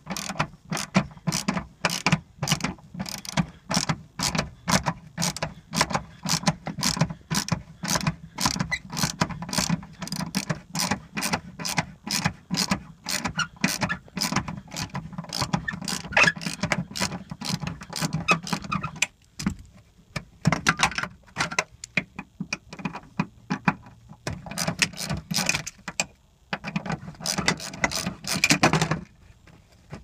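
Hand ratchet wrench clicking in a steady run of quick clicks as its handle is swung back and forth, loosening a seatbelt buckle anchor bolt through a socket and extension. The clicking stops briefly twice, about two-thirds of the way in and near the end.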